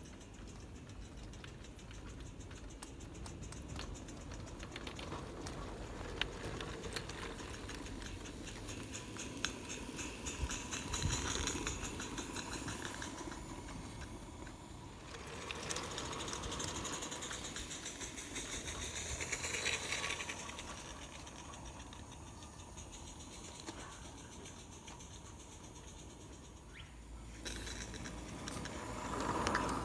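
Scratch-built 3½-inch gauge live-steam Feldbahn locomotive running on garden track: a fast, even chatter of exhaust beats and wheels on the rails. It swells and fades as the engine moves around the line, and is loudest near the end as it passes close.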